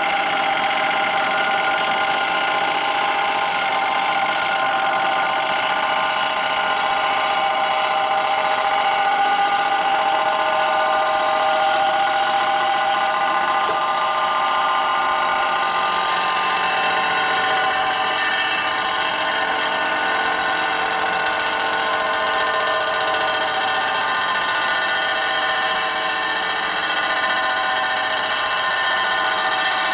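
Motor-driven shop machine running steadily, a high multi-tone whine whose pitch drifts slowly.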